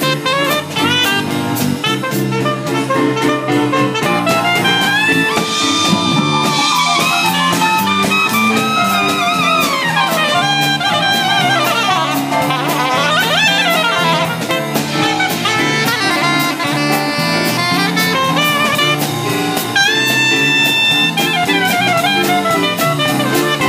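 Live swing-jazz combo playing an up-tempo tune: a soprano saxophone carries the melody, with bends and glides, over a drum kit keeping a steady beat, an electric keyboard and bass guitar.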